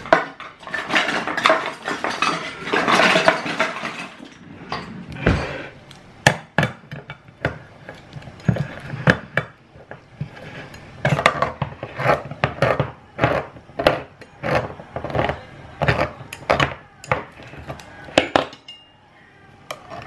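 Hand-held can opener cranked around the lid of a tin of chilli beans: a long run of sharp metal clicks, about two a second, with scrapes of the cutting wheel. Metal tins clatter on the benchtop in the first few seconds.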